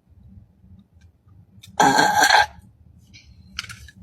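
A woman's burp: one loud belch about two seconds in, lasting under a second.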